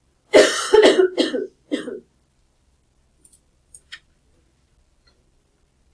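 A person coughing: a quick run of about four loud coughs, followed by a few faint clicks.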